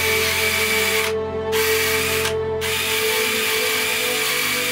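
Small power-driven wire-wheel brush spinning against a small steel part of a rusty ratchet wrench clamped in a vise, scouring the rust off with a steady whine. It breaks off briefly twice, at about one second and just past two seconds, then runs on.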